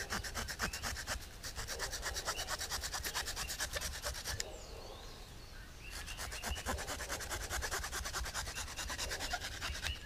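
Victorinox Swiss Army Camper 2 pocket knife's small wood-saw blade cutting through a guava stick, fast back-and-forth rasping strokes several times a second. It goes in two bouts with a short pause near the middle.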